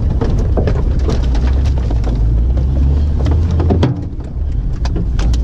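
Kia Sportage's engine running hard off-road, heard from inside the cabin, with a steady low drone under constant rattling and sharp knocks from the body and suspension on the rough dirt track. The engine note drops briefly about four seconds in.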